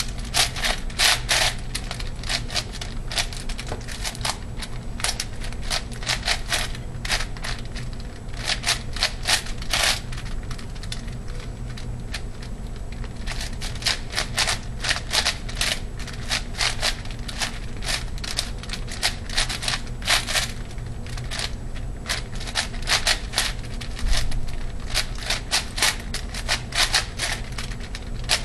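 ShengShou 8x8x8 puzzle cube being speedsolved: rapid runs of plastic clicks and clacks as its layers are turned, coming in bursts with short pauses between them.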